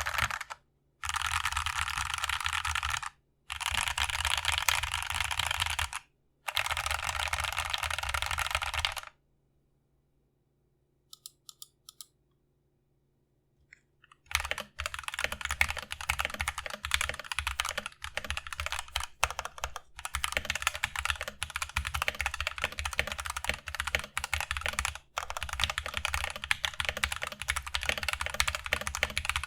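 Mechanical keyboard with stock (unlubricated) Everglide Aqua King linear switches in an aluminium plate. First come four bursts of rapid key tapping, each a few seconds long. After a pause of about five seconds with a few faint clicks, steady continuous typing begins.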